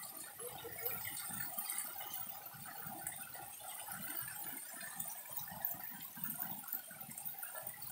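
Water pouring from a long row of spouts along a wall and splashing into the channel below: a steady splashing.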